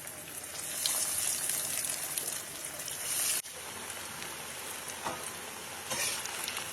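Breadcrumb-coated paneer cubes deep-frying in hot oil, a steady crackling sizzle. The sizzle is louder in the first half and drops suddenly about halfway through.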